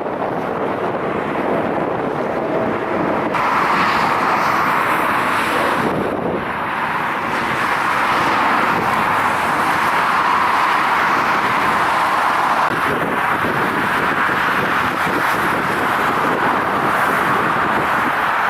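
Steady, loud rushing noise of jet airliner engines, with a sudden step up in level about three seconds in.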